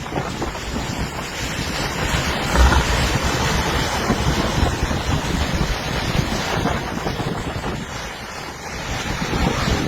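Storm waves crashing and washing on the shore, with strong wind buffeting the microphone in a low rumble. The surf swells louder about two and a half seconds in and eases briefly near the end.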